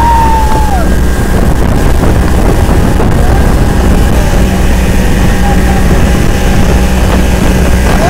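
Motorboat engine running loud and steady under way, with water rushing along the hull and wind on the microphone.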